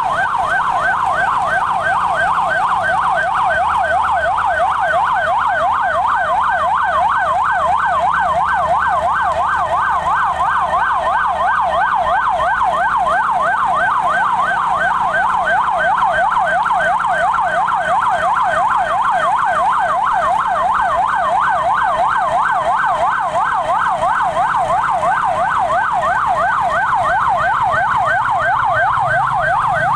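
Electronic emergency-vehicle siren in a fast yelp, its pitch sweeping rapidly up and down without a break.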